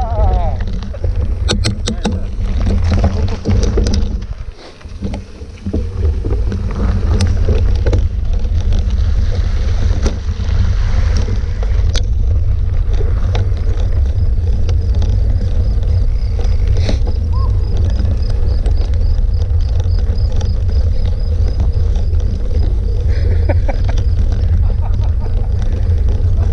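Steady wind buffeting and low rumble on the microphone of a camera carried along on a mountain bike over a dirt track. A few knocks and rattles from bumps come in the first few seconds.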